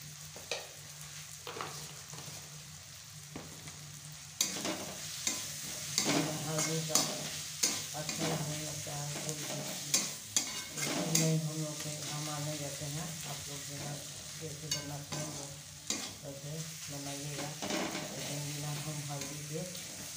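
Onions, tomatoes and ground spices sizzling in oil in a kadhai while a spatula stirs and scrapes the pan, with frequent sharp clicks of the spatula against the metal. The sizzling jumps louder about four seconds in, over a steady low hum.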